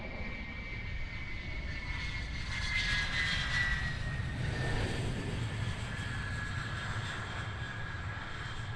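MiG-31's twin Soloviev D-30F6 afterburning turbofan engines running at high power: a steady jet rush with a whine that slowly falls in pitch, loudest about three to five seconds in.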